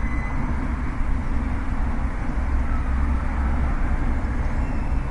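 Steady outdoor ambient noise dominated by a deep, uneven rumble, with no distinct events.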